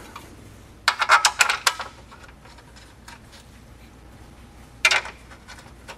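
Small hard parts being handled and fitted: a quick run of clicks and rattles about a second in, and one short clatter near the end.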